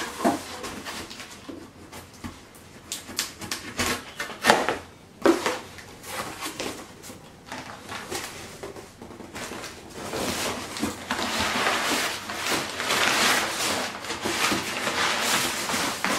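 Cardboard shipping box being opened by hand: packing tape pulled off and flaps handled in a run of sharp knocks and rips. From about ten seconds in comes a steady crackling rustle of crumpled packing paper being pulled about inside the box.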